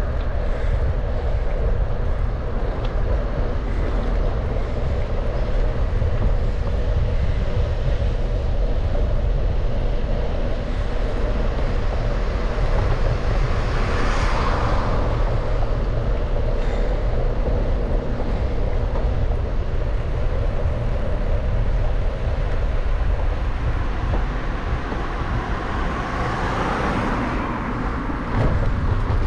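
Wind rumble on the microphone of a moving bike, over steady road noise, with two passing vehicles swelling up and fading, about halfway through and near the end.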